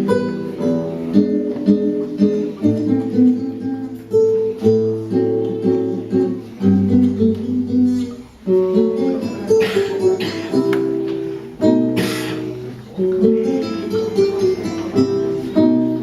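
Acoustic guitar strummed, moving through chords, with a few harder strums about ten and twelve seconds in.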